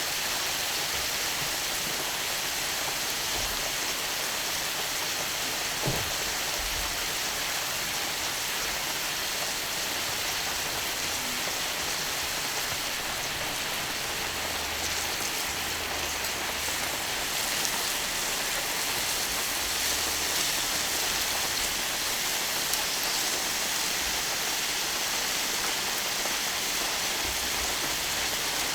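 Beef skirt (harami) sizzling on a hot iron griddle: a steady hiss, with one sharp click about six seconds in.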